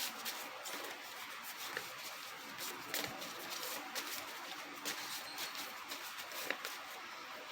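Tarot cards being shuffled and handled: soft scattered clicks and rustles of card stock.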